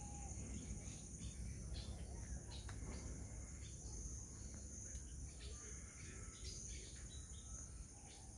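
A steady high-pitched insect chorus, with a few short bird chirps over it and a low rumble underneath.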